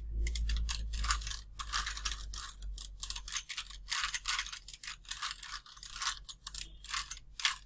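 Plastic 3×3×3 Rubik's cube being twisted quickly: an irregular run of clicks and scrapes as its layers are turned, several moves a second.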